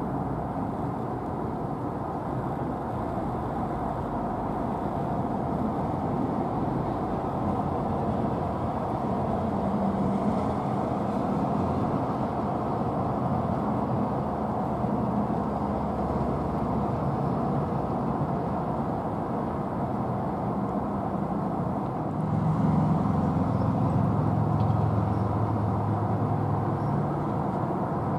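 Steady low rumble of distant motor traffic, with an engine drone swelling for about five seconds in the last third.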